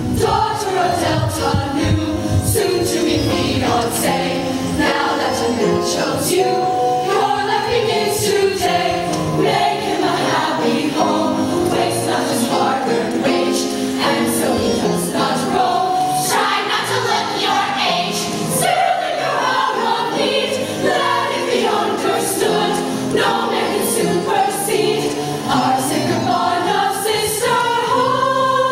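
A show choir singing an up-tempo show tune in harmony over backing music with a steady beat.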